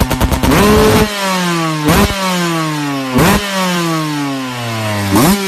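A 125 cc trail motorcycle engine pulsing at low revs, then revved in four quick throttle blips, the revs falling slowly back after each one.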